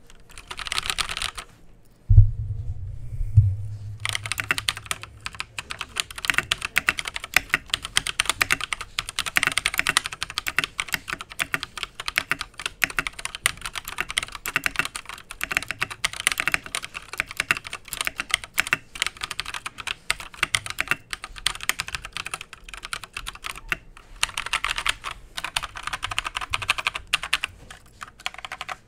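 Typing on an Akko 3087 World Tour Tokyo mechanical keyboard with Akko 2nd Gen Orange switches: fast, continuous key clacks, a sound the owner calls kind of hollow. About two seconds in there is a low thump, and another comes a second later.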